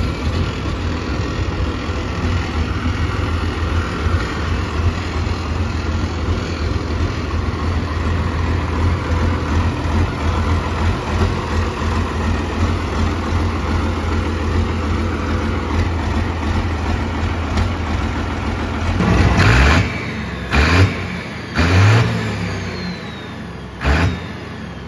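Turbocharged six-cylinder engine of a Fordson Major tractor puller running steadily under way, its turbo open with no air intake fitted. About three-quarters of the way through it gives several short bursts of throttle, a rev rising and falling around 22 s, then settles lower.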